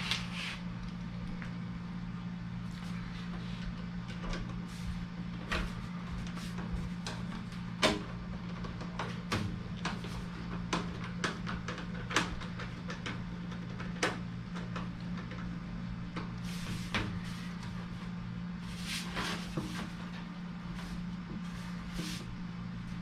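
Irregular clicks, taps and brief rustling scrapes of hands working on HVAC ductwork, over a steady low hum.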